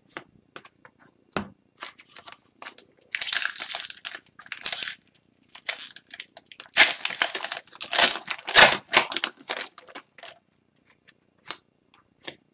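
Foil trading-card pack wrapper being torn and crinkled by hand, in two stretches of crackling, between light clicks of cards being handled.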